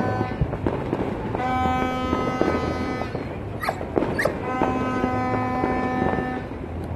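A horn sounding in two long, steady held blasts of a couple of seconds each, over scattered firecracker pops, with two short rising whistles between the blasts.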